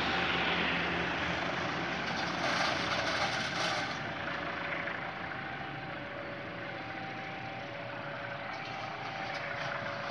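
Diesel-hauled local passenger train pulling away along the track, its engine and running noise steady and slowly fading as it recedes.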